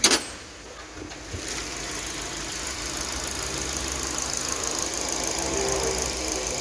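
A sharp clunk as the seat-mounted engine cover of a Suzuki New Carry pickup is released. Then the pickup's engine idles steadily, growing louder over the next second or two as the cover is lifted.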